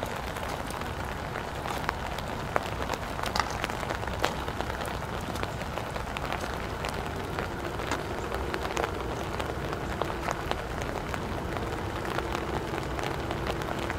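Steady rain falling, with close raindrops ticking over a low rumble. A faint steady hum comes in about halfway.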